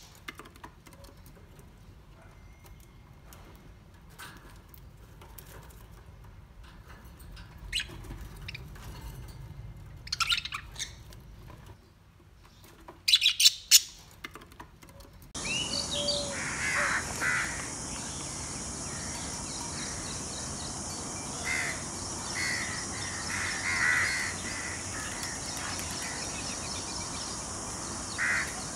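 Birds calling. A few short loud calls break a quiet first half. Then the sound changes abruptly to a steady high hiss with repeated short chirping calls.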